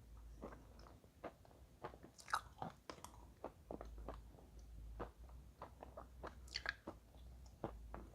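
Chalk with clay paste being bitten and chewed close to the microphone: irregular small crunching clicks, several a second, with two louder crisp crunches, about two seconds in and again near six and a half seconds.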